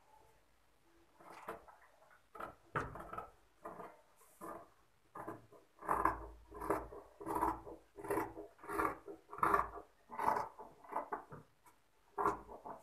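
Tailor's scissors cutting through layered blouse fabric and lining, a run of snips about one every two-thirds of a second, busiest in the middle, with the cloth rustling as it is handled.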